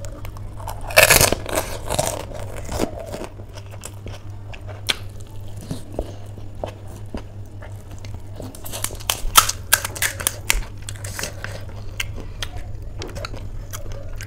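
Close-miked eating: crisp pani puri (phuchka) shells crunching as they are bitten, then chewing, with the loudest crunch about a second in and another run of crunches about two-thirds of the way through. A steady low hum runs underneath.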